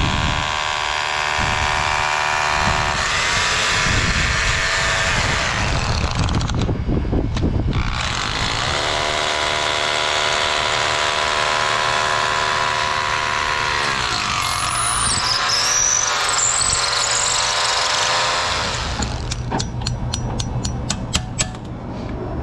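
Milwaukee SDS-Plus rotary hammer drilling into brick with a steady whine, in two long runs with a short break between. Near the end comes a quick run of sharp hammer taps on an anchor bolt.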